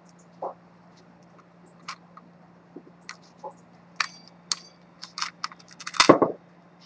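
Sharp clicks and small metallic knocks from fingers working the silver case of an antique repeater pocket watch. The clicks come sparsely at first, then more quickly after about four seconds, with the loudest clatter about six seconds in.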